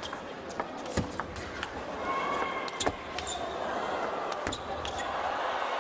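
A table tennis rally: the celluloid ball clicks sharply and irregularly off rubber bats and the table as loops are met with chopped defensive returns, over steady hall noise.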